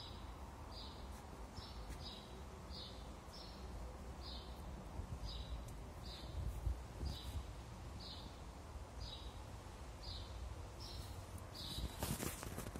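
A sparrow chirping over and over, one short high cheep about every three-quarters of a second, over a low rumble. A brief rustle near the end.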